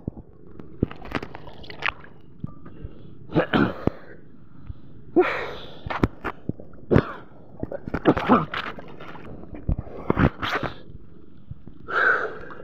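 Sea water splashing and sloshing against a camera held at the surface by a swimmer, in irregular noisy bursts every second or two.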